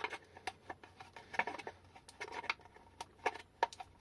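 Irregular small clicks and taps of hands handling the plastic Hailong battery case and its discharge connector, with a few sharper knocks in the second half.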